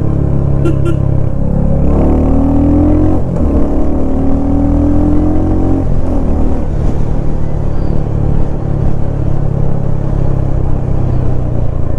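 Royal Enfield Hunter 350's single-cylinder engine running under way. Its note rises twice, from about two seconds in to about six seconds in, with a brief dip between as the bike accelerates through a gear change.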